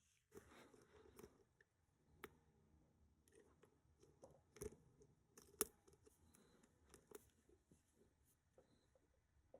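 Faint, scattered clicks and light scrapes of a lock pick working the pins of a Brava-based challenge pin-tumbler lock, a few sharper ticks among them. Nothing gives feedback because the lock has gone into its trap.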